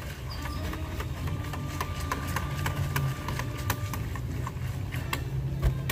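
A metal can of Minwax wood stain being handled and shaken, giving irregular clicks and knocks, over a steady low hum.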